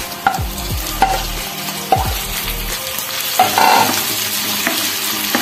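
Bacon and button mushrooms sizzling in a frying pan while a wooden spatula scrapes them in and stirs, with several short knocks of the spatula against the bowl and pan.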